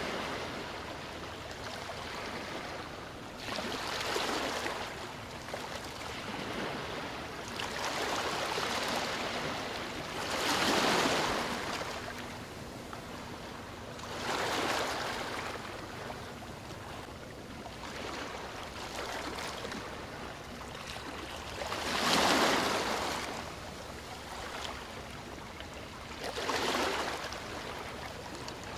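Sea waves washing ashore: a steady hiss of surf that swells into a rush about six times, every few seconds, each wave building and falling back, the loudest two about a third of the way in and near three quarters.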